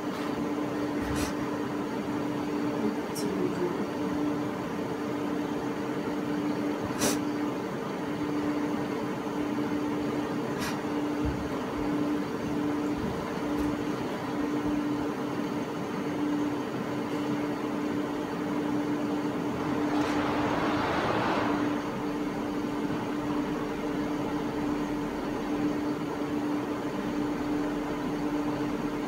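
Steady electrical hum over background room noise, with a few faint clicks and a brief swell of hissing noise about twenty seconds in.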